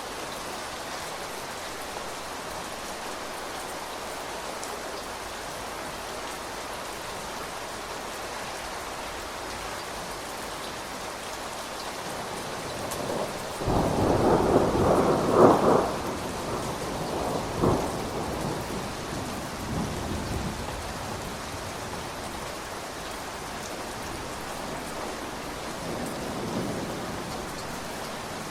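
Steady rain falling. About halfway through a thunderclap breaks in suddenly and cracks loudly for a couple of seconds, then a second crack follows and the thunder rumbles away, leaving the rain.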